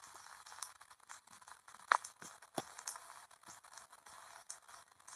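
Faint hiss with scattered crackles and clicks, the sharpest about two seconds in.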